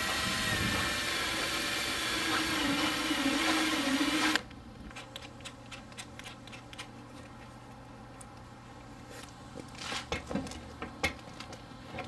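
Power drill running a step drill bit through the plastic front bumper, its motor whine wavering under load, stopping suddenly about four seconds in. A few light clicks and knocks follow from handling.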